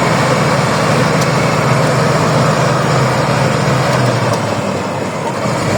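A heavy engine running steadily with a low hum under a constant rushing noise.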